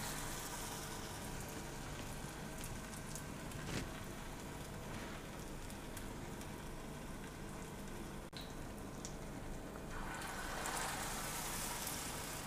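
Hot oil sizzling steadily around a batter-coated potato cutlet as it shallow-fries in a pan, with a few faint pops. The sizzle grows a little louder about ten seconds in, as a second cutlet goes into the oil.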